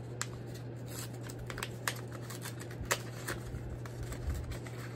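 Paper rustling and crinkling, with irregular small clicks, as a small white paper envelope is pulled open by hand.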